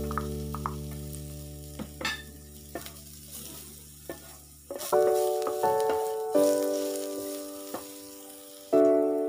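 Minced garlic sizzling in hot oil in a pan while a spatula stirs and taps against it, with scattered light clicks. Slow background piano music plays over it: chords ring and fade, and new chords strike in the second half.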